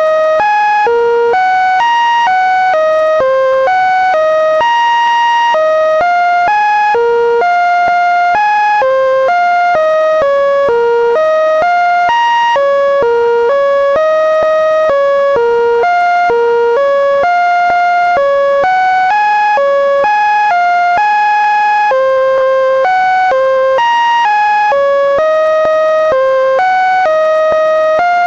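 Computer-generated tones made from the Linux kernel's data: an unbroken run of electronic beeping notes, about two to three a second, hopping up and down in pitch with no pauses.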